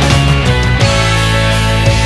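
Background rock music with guitar and sustained low notes, shifting to a new chord a little under halfway through.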